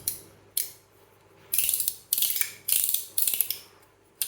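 A stainless-steel Wormhole-style fidget slider being slid back and forth, its metal parts snapping into place with about seven sharp metallic clacks. Several of the clacks are followed by a brief metallic rasp.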